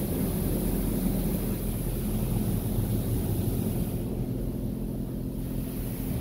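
Automatic touchless car wash spraying a van, heard from inside the van's cargo area, over the low steady hum of the van's idling engine. The hiss of the spray eases off about four seconds in.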